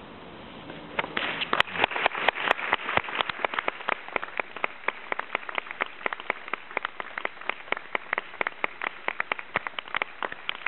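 Audience applauding: the clapping breaks out about a second in, is loudest over the next couple of seconds, then goes on as steady clapping.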